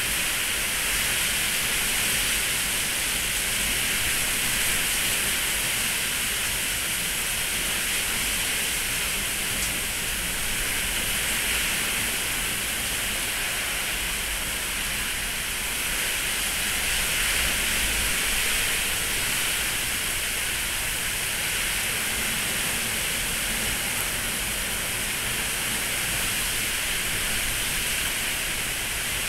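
Heavy hurricane rain and wind: a dense, steady hiss of pouring rain over a low rumble, swelling slightly now and then.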